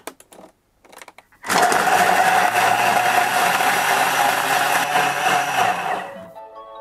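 Thermomix TM5 kitchen robot blending grapes, a peeled lemon and ice cubes at full power. A loud, dense whirr starts about a second and a half in, after a few short knocks, and dies down about six seconds in.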